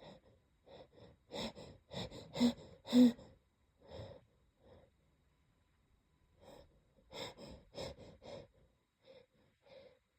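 A person sniffling and taking short, catching breaths, the sound of a tickling nose while a sneeze is held back. They come in two clusters, the first from about one to four seconds in and the second around seven to eight seconds, and the sharpest comes about three seconds in.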